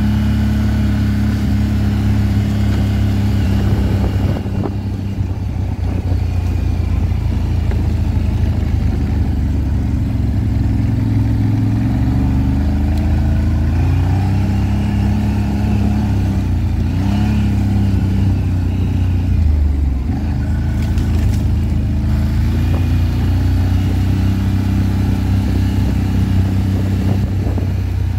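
CFMoto CFORCE ATV engine running at low cruising speed on a dirt track, its note steady at first, then dipping and rising several times midway as the rider eases off and opens the throttle, with tyre and track noise underneath.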